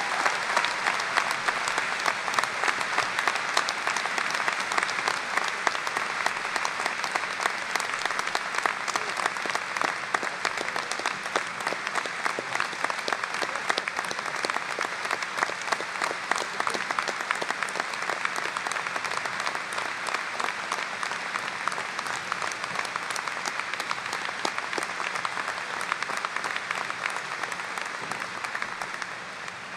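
A large crowd applauding in a sustained standing ovation, a dense steady clatter of many hands clapping that dies away near the end.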